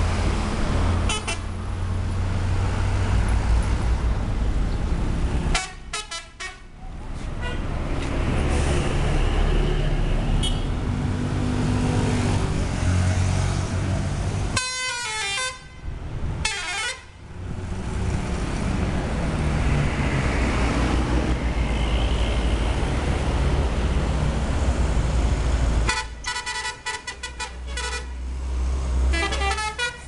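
Heavy diesel coach engines and road traffic running, broken three times by a bus's multi-trumpet "telolet" air horn playing a quick melodic jingle: about six seconds in, again around fifteen seconds, and near the end.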